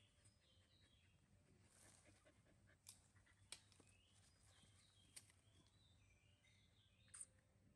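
Near silence: faint scuffling of a dog and a baby monkey play-wrestling on dry, leaf-strewn ground, with a few light clicks and faint bird chirps.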